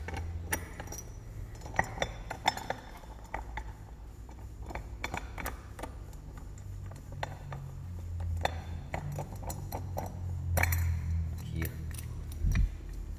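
Irregular light metallic clinks and taps, with a few sharper knocks about two seconds in and again later, from tools working at the flywheel of a STIHL FS 220 brush cutter engine to get it off the crankshaft.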